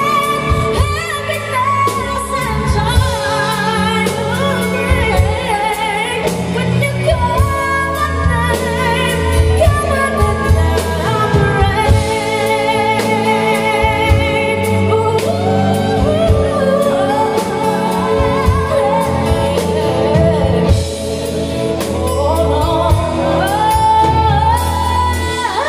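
A female vocalist sings a powerful live ballad with a band. Her long high notes waver with strong vibrato and break into quick runs, over steady bass and drums.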